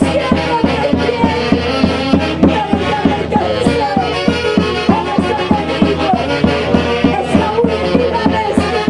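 Live instrumental music from a Peruvian band, with a steady quick beat of about three to four strokes a second under a wavering melody line.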